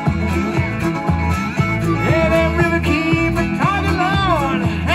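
A live band playing an instrumental passage: acoustic guitar, electric bass and congas, with a harmonica playing bending, wavering melody lines that stand out from about three and a half seconds in.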